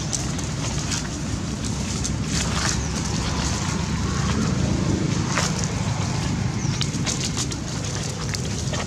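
Steady low rumble of wind on the microphone, with scattered crackles of dry leaves underfoot.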